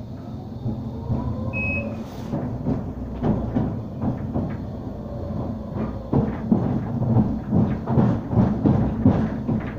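Inside a Bombardier Incentro tram running on street track: a steady low rumble with the traction motor whine rising over the first couple of seconds as it picks up speed, then an irregular rattling clatter of wheels and body over the rails.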